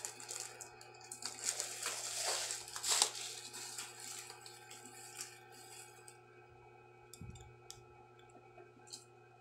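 Handling noise from unpacking: plastic wrapping rustling and crinkling for the first few seconds, then a few light clicks and taps as a bar of soap and bottles are set down.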